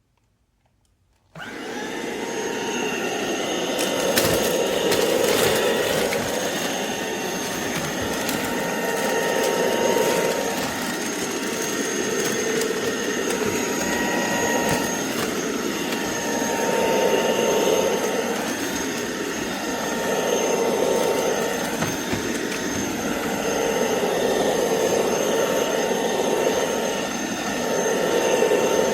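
Tineco Pure ONE S11 cordless stick vacuum cleaner switching on about a second in and running with a steady high whine, its sound swelling and easing every three to four seconds.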